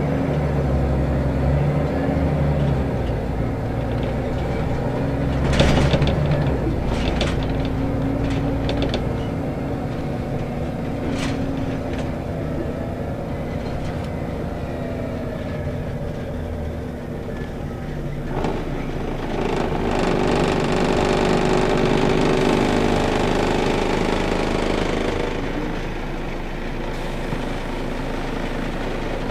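Inside a Scania L94UB city bus under way: its 9-litre five-cylinder diesel engine and road noise run steadily through the cabin. A cluster of clicks and knocks comes about six to nine seconds in, and the noise grows louder from about nineteen seconds in before easing back near twenty-five seconds.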